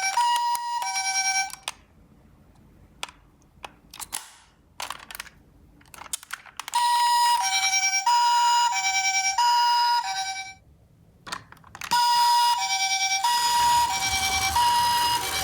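Toy ambulance minicar's electronic two-tone siren, alternating between a high and a low note. It plays in three spells of about four seconds each, with clicks and knocks in the gaps between them and a low rumble near the end.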